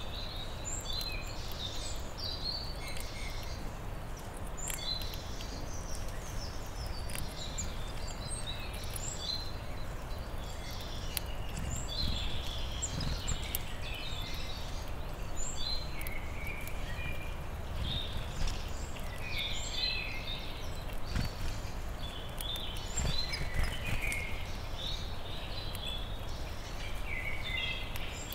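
Wild songbirds singing in a forest, many short chirping phrases overlapping throughout, over a low steady background rumble. Faint scattered clicks come from a red squirrel nibbling a seed close to the microphone.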